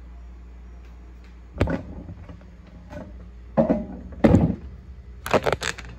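A handful of dull knocks and thumps, likely objects being handled and set down: one about a second and a half in, two more around four seconds, and a quick cluster near the end, over a steady low hum.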